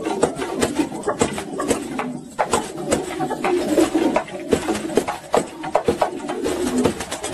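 Pigeons cooing, with many sharp wing slaps as they scuffle and flap at each other over a nest bowl.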